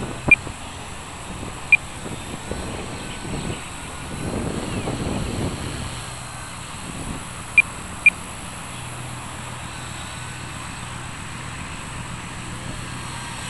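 Blade mCP X micro RC helicopter flying high overhead, its electric motor and rotors a faint steady whine, under gusts of wind on the microphone that swell for a couple of seconds midway. Four short high beeps cut through: two near the start and a quick pair about eight seconds in.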